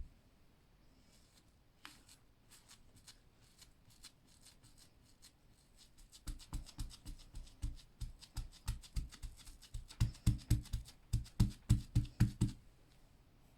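A sponge dabbed again and again onto a T-shirt through a stencil: a quick run of soft pats, about three or four a second, getting louder in the last couple of seconds before stopping. A few light clicks of handling come before it.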